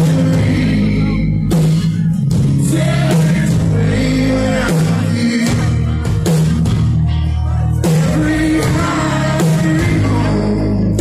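Live country-rock band playing loud: a man singing lead over acoustic and electric guitars, with steady drum hits and bass underneath.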